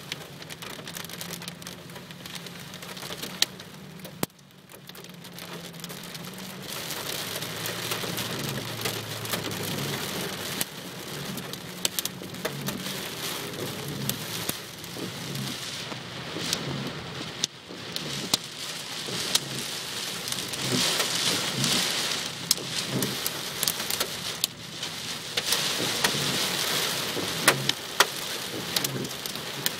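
Heavy rain falling in a thunderstorm, with many sharp clicks of drops striking a hard surface close by. A low rumble runs through the first ten seconds or so, and the rain grows louder from about six seconds in.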